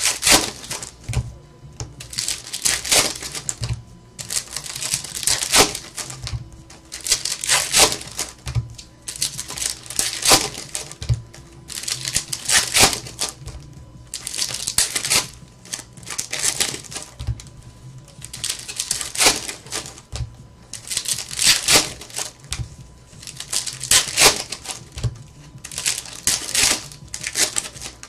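Foil trading-card pack wrappers crinkling and rustling as packs of baseball cards are handled and opened, in irregular bursts every second or two, with soft knocks as packs and cards are set down on the table.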